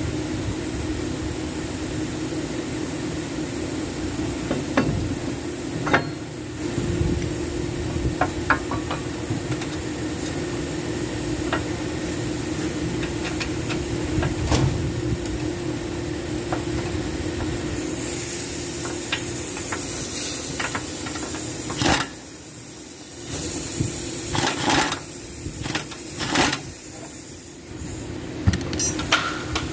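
Workshop sounds of metal parts and hand tools: scattered sharp clicks and knocks over a steady hum and hiss, with a busier run of knocks and clatter in the last third.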